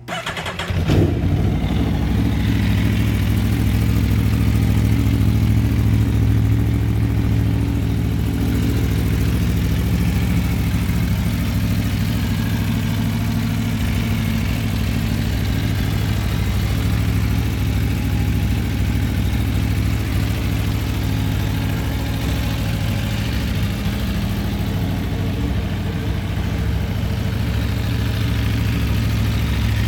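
Aprilia Tuono V4 1100 Factory's V4 engine starting up and settling into a steady idle.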